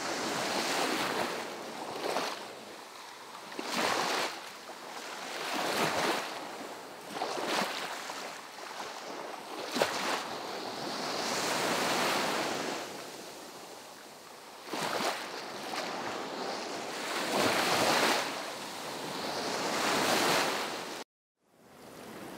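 A rushing noise, like surf or wind, that swells and fades every couple of seconds, then cuts off abruptly near the end.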